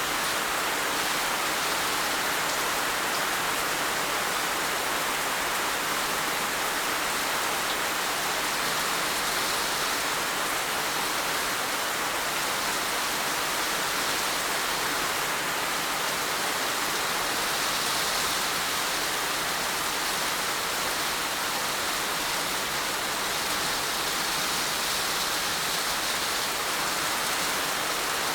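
Heavy rain falling steadily, a dense even hiss of drops with no pauses or changes in strength.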